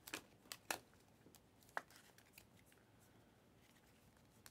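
Panini Prizm trading cards being flicked and slid one behind another through the hands as a stack is sorted, faint, with a few sharp card snaps in the first two seconds.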